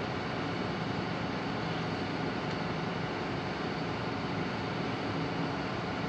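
A SANY tracked excavator's diesel engine running steadily with a low hum.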